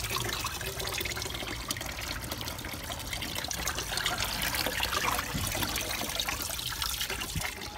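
Tap water running steadily into a large aluminium pot of water while hands rub and squeeze raw meat in it, with small splashes and sloshes throughout.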